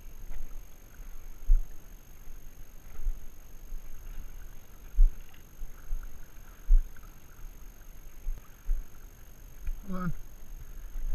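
Water sloshing and swirling around the legs of someone wading through knee-deep water, with irregular low thumps every second or two. A short, falling voice sound comes near the end.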